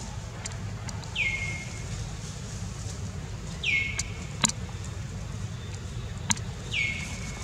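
A bird calling three times, about every three seconds: each call is a short note that drops in pitch and then holds level for a moment. Under it runs a steady low rumble, and there are a few sharp clicks, the loudest about four and a half seconds in.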